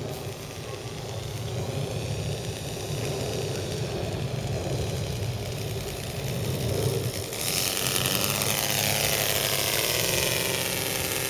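Saito three-cylinder radial four-stroke engine of a large scale RC Deperdussin monoplane in flight, running with an even rhythm. It grows louder from about seven seconds in as the plane passes close, then its pitch slides down as it moves away.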